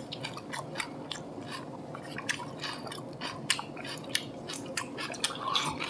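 Close-up chewing: a run of short, irregular wet clicks and squishes from someone eating chewy acorn jelly.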